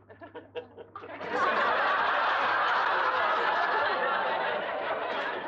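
Studio audience laughing: a few scattered laughs at first, swelling about a second in into a long, loud wave of laughter that eases off near the end.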